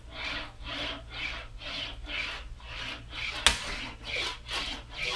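Sheet-metal cab corner panel being rolled back and forth through an English wheel, a rhythmic swish of the metal rubbing between the wheels about twice a second. These are light passes to blend out stop marks. A single sharp knock comes about three and a half seconds in.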